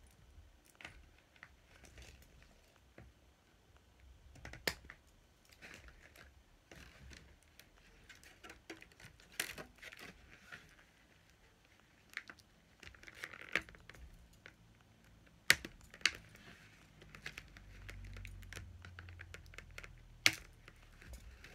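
Clear plastic toy packaging crinkling and rustling as it is handled, with irregular small clicks and a few sharp snaps. Near the end, scissors snip into the plastic.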